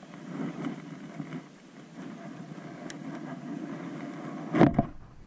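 Wind and clothing rustling on the camera's microphone. About four and a half seconds in, a jacket sleeve brushes hard across the microphone, making a loud scrape and a low rumble.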